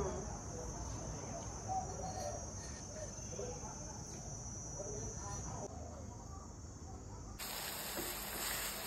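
A steady high-pitched insect trill with faint, quiet talk, which fades out a little past halfway. About seven seconds in, a sudden, even hiss starts: an egg omelette with minced meat frying in a hot wok, sizzling.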